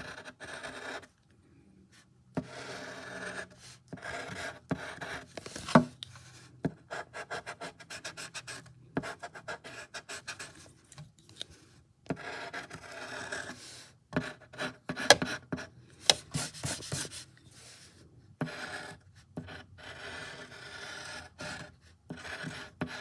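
Drawing tool scratching across a drawing surface in runs of short back-and-forth strokes, with brief pauses and a few sharp taps.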